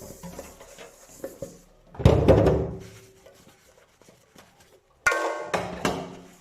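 Dishes being handled during hand washing: a loud clatter with a ringing clang about two seconds in, another about five seconds in, and lighter knocks between them.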